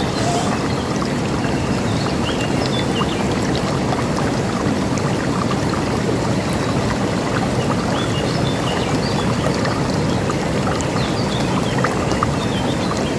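River water rushing steadily, with small birds chirping in short, scattered calls over it.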